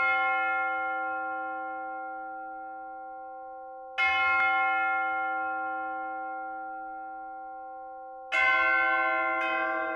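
Church bells: a large bell struck about every four seconds, each stroke ringing long and slowly fading. After the third stroke a second bell of another pitch strikes about a second later, as the ringing starts to quicken.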